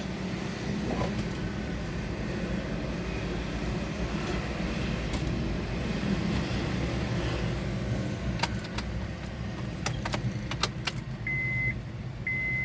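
A car engine idling steadily, with a few sharp clicks in the second half. Near the end a single-pitched beep starts repeating about once a second.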